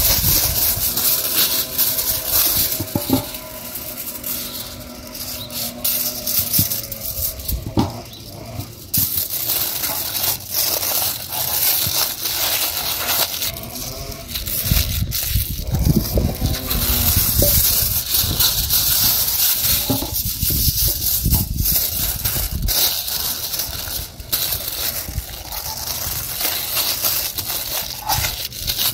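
Aluminium foil crackling and crinkling as it is unrolled and folded by hand around a sweet potato, in a dense run of small crackles.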